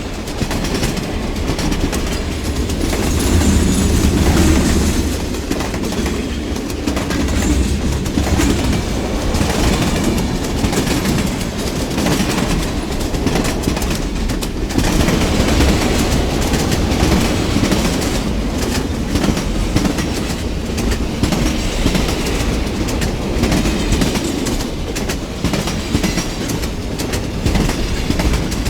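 Train rolling past, its wheels clacking over rail joints in a steady stream of clicks over a continuous rumble, loudest about four seconds in.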